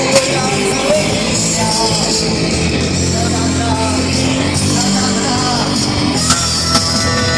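Live rock band playing loudly: electric guitar, bass guitar and drums, with a singer on a microphone.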